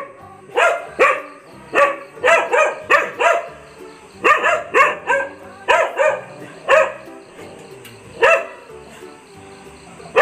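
A dog barking: short, sharp barks in quick runs of two to four, separated by brief pauses, over quiet background music.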